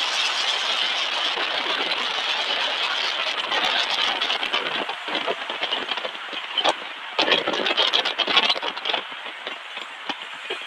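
Road and wind noise of a vehicle on the move, a steady rushing hiss. After about five seconds it grows patchier, with scattered short rattles and knocks.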